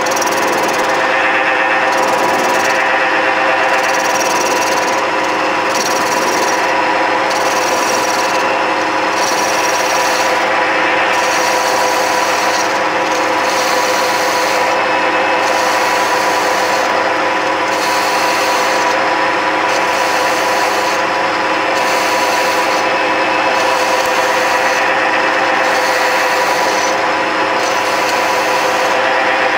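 Metal lathe turning a workpiece with a carbide-insert cutting tool: a steady machine hum under the continuous scraping hiss of the cut.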